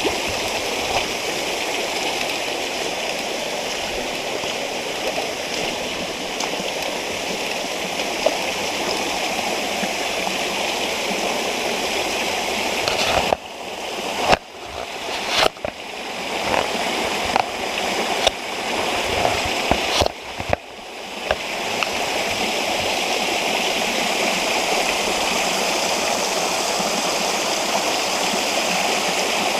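Steady rushing of flowing creek water. Between about 13 and 21 seconds in, it cuts out abruptly several times, and each time the rush swells back in.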